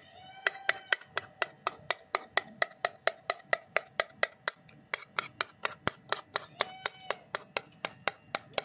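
Metal spoon knocking and scraping against the bottom of a bowl while mashing aloe vera pieces, an even run of clicks about four to five a second.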